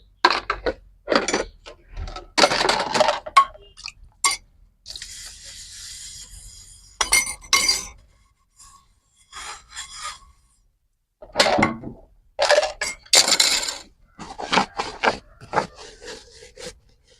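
Dishes and kitchen utensils being handled: a string of clinks, knocks and scrapes, with a short hiss about five seconds in.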